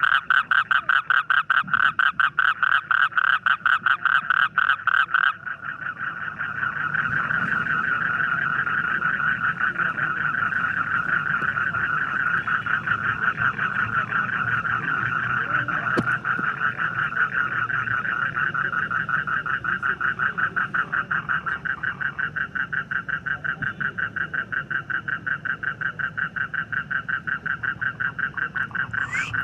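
Frogs calling in a chorus, a rapid, even train of pulsed croaks. They are loudest for the first five seconds or so, then carry on a little softer and steady.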